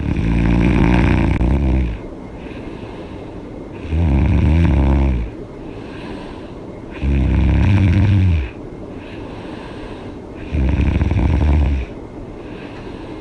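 A woman snoring with her mouth open: four loud, low, rattling snores about three and a half seconds apart, each lasting around one and a half seconds, with quieter stretches between them.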